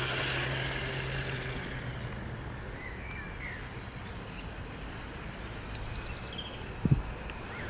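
Quiet outdoor ambience with a few short bird chirps and a quick trill, after a hiss and low hum fade out in the first two seconds; a single thump near the end.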